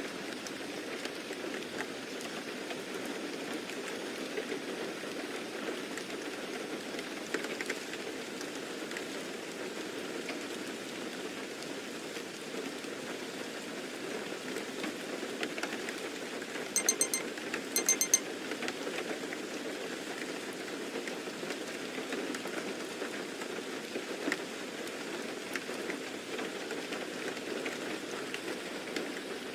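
Steady rain falling, an even rushing patter, with a short cluster of sharp clicks about seventeen seconds in.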